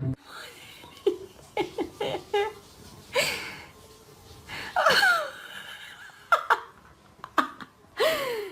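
A person laughing in short, irregular bursts with breathy gasps, a few of them falling in pitch.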